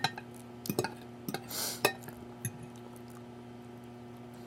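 Cutlery clinking against a dinner plate in a few short, sharp clicks during the first two and a half seconds, with a brief breathy hiss among them.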